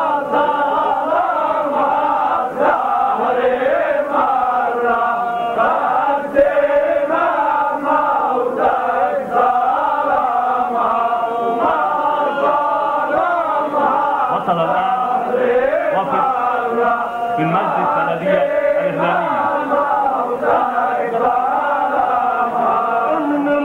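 A large group of men chanting together in unison, taking up a sung Lebanese zajal refrain; many voices overlap without a break.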